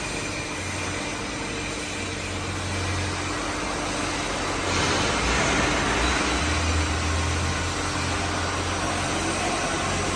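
Steady machine noise: a low hum under an even hiss, which grows brighter and a little louder about five seconds in.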